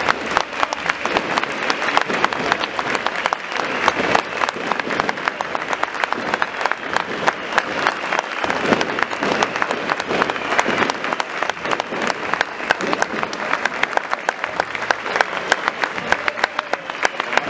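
Large crowd clapping continuously, a dense and steady patter of many hands, with voices mixed in.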